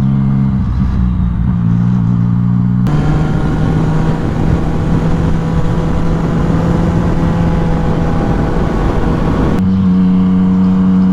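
Yamaha FZ-09 inline-three engine running while riding. From about three seconds in until near the end, loud wind rushes over the helmet microphone above a steady engine note, starting and stopping abruptly.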